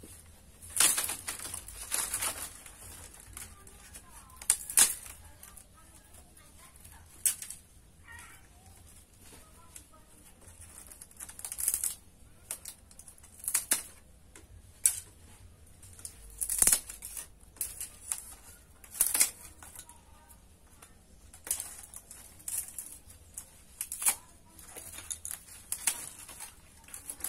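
Bamboo strip ends being cut off with a hand cutting tool to trim the finished weave: a sharp snip or crack every second or two, irregularly spaced.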